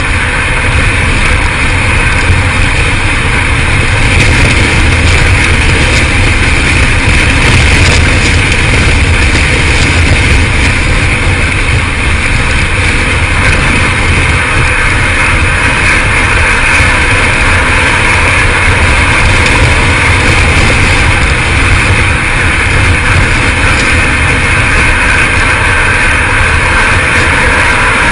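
Loud, steady rush of wind and road noise from a car driving at speed, heard from on top of the car's roof.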